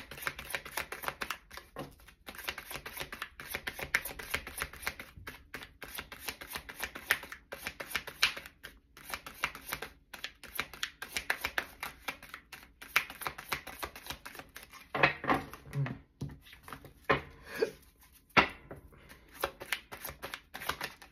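Tarot deck being shuffled by hand: a fast, continuous patter of card clicks and riffles for about fourteen seconds, breaking near the end into a few separate, louder handling sounds.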